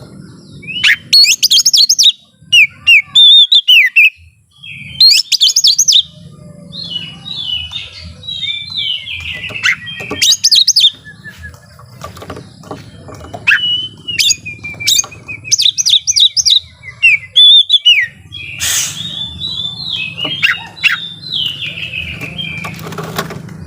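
Oriental magpie-robin (kacer) in full song: loud bursts of rapid, varied whistles, trills and chattering notes, broken by short pauses. A faint low hum runs underneath.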